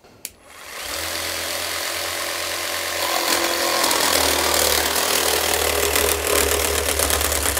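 Bosch GST 10.8 V cordless jigsaw starting up and sawing a long cut through 18 mm OSB board: a steady motor hum with the rasp of the reciprocating blade in the wood. The sound grows louder about three seconds in as the cut gets under way.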